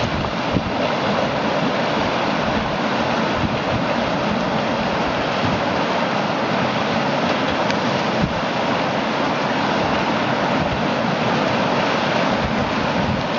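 Steady rush of whitewater churning through a river rapid, with wind buffeting the microphone.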